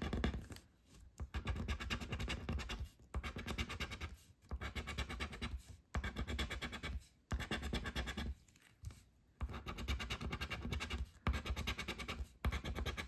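Coin scratching the coating off a paper scratch-off lottery ticket: runs of rapid back-and-forth scraping strokes, broken by several short pauses.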